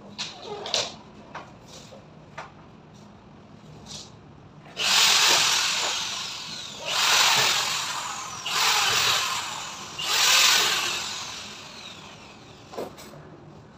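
Power drill run in four short bursts, each starting sharply and winding down with a falling whine after the trigger is let go. Light clicks and knocks come before the first burst.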